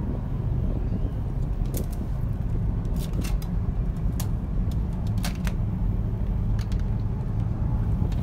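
Steady low outdoor rumble with scattered short, sharp clicks and knocks through it, a dozen or so, irregularly spaced.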